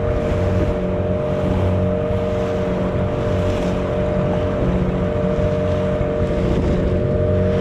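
Small boat's engine running at a steady cruising speed, holding one even pitch, with water rushing past the hull.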